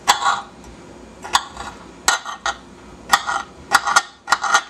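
Kitchen knife slicing garlic cloves on a wooden cutting board: about eight sharp knocks as the blade strikes the board, irregularly spaced.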